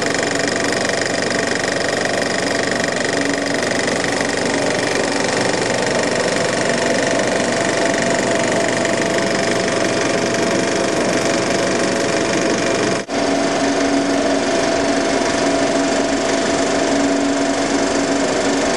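Century 35mm film projector running, a steady mechanical clatter of its intermittent and film drive. The sound briefly drops out about thirteen seconds in, then carries on with a slightly different tone.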